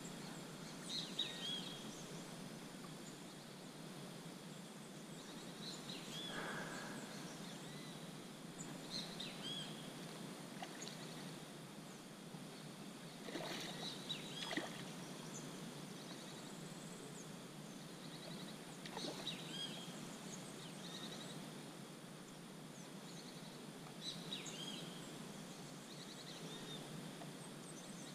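Faint outdoor ambience: a steady background hiss with birds chirping in short bursts every few seconds, and a few brief soft noises in between.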